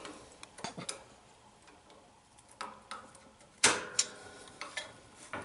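Scattered light metallic clicks and taps of pliers and a steel snap ring being worked onto an axle shaft, with a sharper click about two-thirds of the way through.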